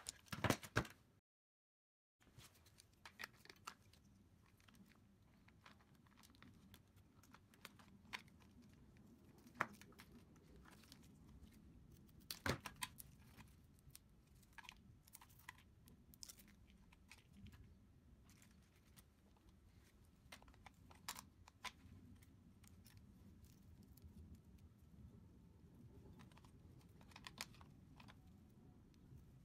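Faint, scattered clicks, taps and rustles of small plastic parts and wiring being handled while assembling an RC car kit, with a second of dead silence near the start.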